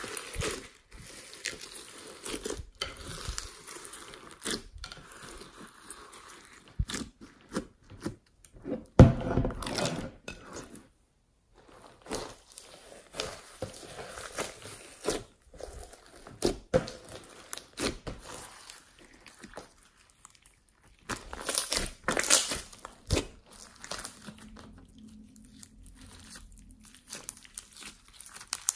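Blue slime mixed with foam beads being pressed, squeezed and stretched by hand, giving irregular sticky crackles, pops and crunches with short pauses.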